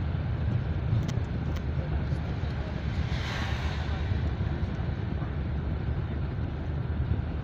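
Steady low road and engine rumble heard from inside a moving vehicle on a highway, with a brief rushing swell about three seconds in.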